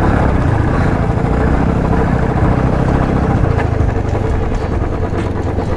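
Motorcycle engine running steadily while being ridden, with road and air noise.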